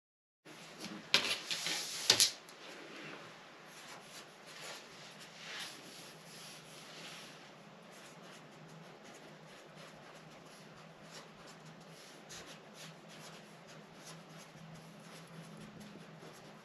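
Hands measuring and marking a skirt pattern: a few sharp clacks a second or two in, then quieter rubbing and scratching as the measure and marker are worked over the pattern.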